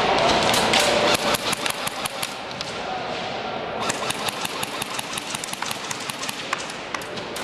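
Airsoft guns firing: long runs of rapid sharp clicking shots, some loud and close, others fainter.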